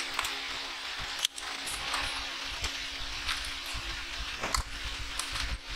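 Light metallic clicks and taps of small carburettor parts being handled and worked, over a steady hiss that drops out briefly about a second in.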